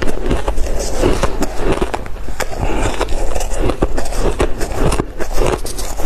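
Soft crushed ice crunching in a dense crackle as it is chewed in big bites, mixed with a metal spoon scooping and scraping through a tray of the crushed ice.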